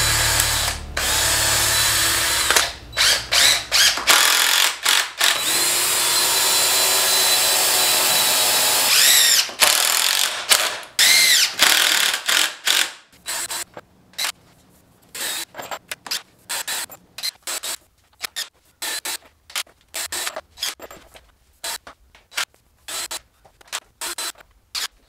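DeWalt 20V cordless driver driving screws into a wooden frame. It runs in long continuous stretches for the first several seconds, and around ten seconds in the motor whines up and down in pitch. After that come many short trigger bursts, quieter toward the end.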